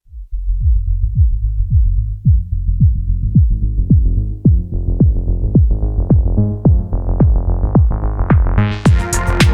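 Techno pattern from a Novation Circuit groovebox: a kick drum about twice a second under a bass line, with a low-pass filter slowly opening until the full mix with hi-hats comes in near the end.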